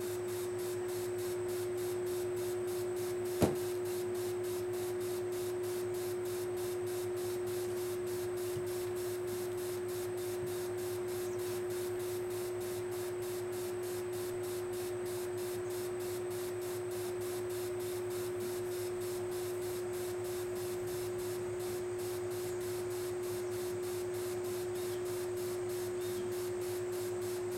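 Garden hose spray nozzle misting with a steady hiss over a constant hum. A single sharp click from a training clicker about three and a half seconds in.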